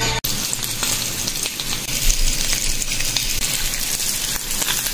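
Slices of beef smoked sausage sizzling in a frying pan: a steady hiss of frying fat with many small crackling pops, starting a moment in.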